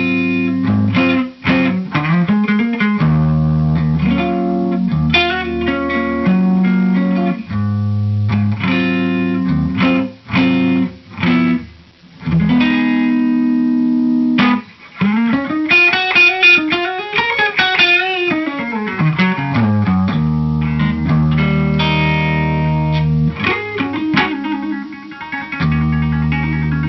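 Gibson Les Paul electric guitar played through a compressor pedal and amplifier: strummed chords and single-note lead runs, with a phrase in the middle where the pitch slides up and back down.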